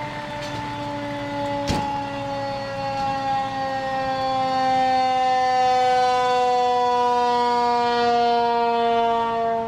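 Fire engine siren sounding one long wail that falls slowly in pitch and grows louder toward the middle, with a single sharp knock about two seconds in.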